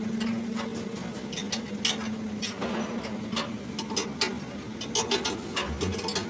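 Ratchet wrench clicking in irregular strokes as it turns a nut on a truck leaf-spring U-bolt, over a steady low hum.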